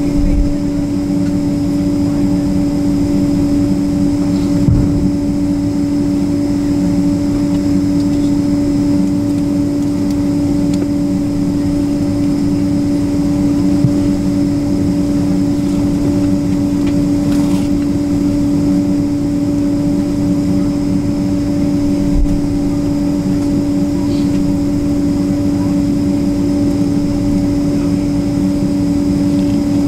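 Steady cabin drone inside a Boeing 767-300ER on the ground after landing: a constant low hum with a higher overtone. A few faint low bumps come through, about five, fourteen and twenty-two seconds in.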